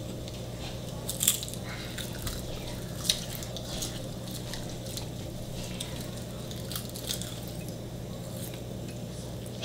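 Close-up sounds of people eating: scattered crisp bites and wet chewing, with the sharpest bites about a second in and about three seconds in, over a steady low hum.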